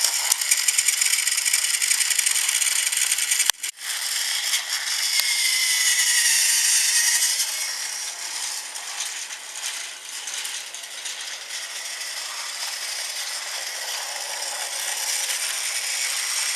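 Battery-powered Thomas Trackmaster toy train running along plastic track, its small geared motor whirring and the wheels rattling steadily. The sound cuts out briefly about three and a half seconds in.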